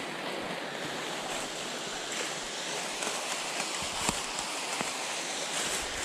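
Steady rush of a woodland stream flowing nearby, with a few faint steps in dry leaf litter.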